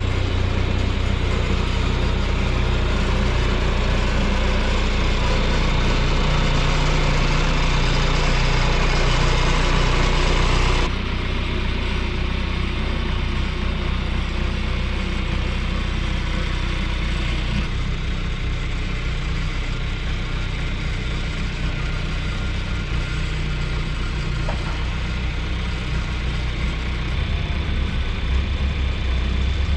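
Farm machinery engine running steadily. Its sound changes abruptly about eleven seconds in, losing much of its higher hiss, and shifts again near eighteen seconds.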